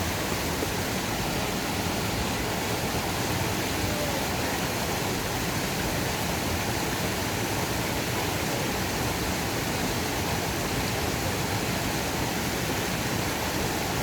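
Mountain valley stream rushing steadily: an even, unbroken hiss of flowing water.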